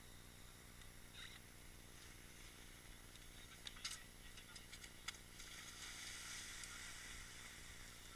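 Near silence: a faint steady hiss with a few sharp ticks around the middle, the hiss growing a little louder over the last few seconds.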